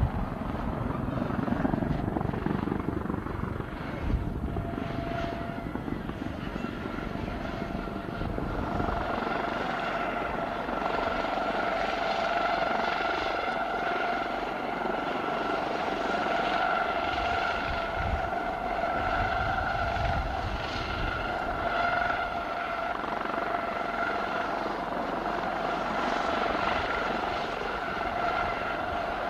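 US Coast Guard HH-65B Dolphin helicopter flying low and then hovering, its rotor and turbine noise running throughout. A steady high whine comes in strongly after about eight seconds.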